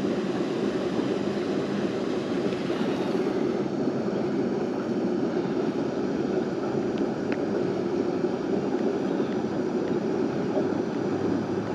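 Steady rushing noise, with two faint ticks about seven seconds in.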